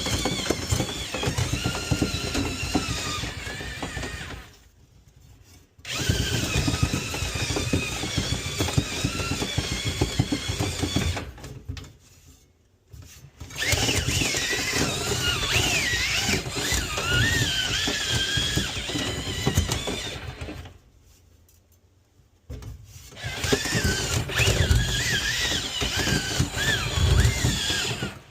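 Power drill spinning a rotary dryer-vent cleaning brush through the duct. It runs for several seconds at a time with its motor pitch wavering under load, and stops briefly three times.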